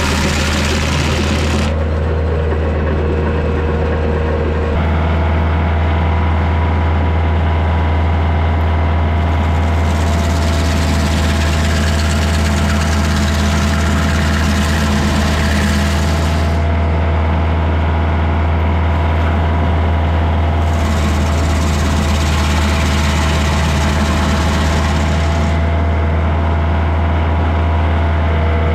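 Tractor diesel engine running steadily under load, driving a Woodland Mills WG24 PTO stump grinder through its driveshaft. Three times the spinning cutter wheel chews into a red pine stump with a hissing, gritty spray of chips; in between, the wheel spins free.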